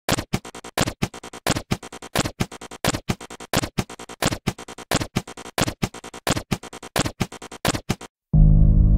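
Synthesized intro sound effects for a retro computer-screen logo: a fast, uneven stream of sharp digital clicks and glitches, then a short gap and, near the end, a deep low boom that rings on as a drone.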